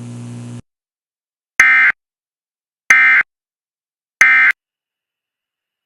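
NOAA Weather Radio SAME end-of-message signal: three short, identical buzzy bursts of digital data tones, a little over a second apart, marking the end of the broadcast alert. A steady low hum from the radio audio cuts off about half a second before the first burst.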